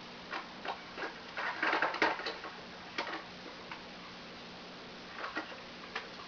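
Irregular light clicks, taps and crinkles of small objects being handled, bunched about one and a half to two and a half seconds in, over a steady low electrical hum.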